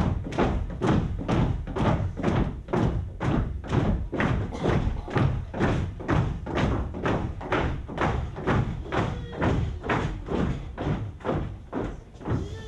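A group of performers marching in step on a stage floor, feet stamping together in a steady, loud beat of about two and a half steps a second.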